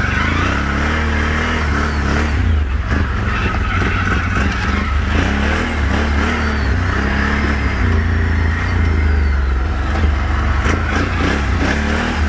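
Can-Am Renegade 1000 XMR ATV's Rotax V-twin engine running under way on a dirt trail, its pitch rising and falling as the throttle changes, over a heavy low rumble.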